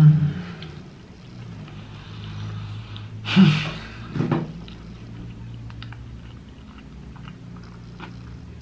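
Close-up eating sounds: a man chewing pizza, with a louder bite or mouth noise about three and a half seconds in and a smaller one just after, over a low steady hum.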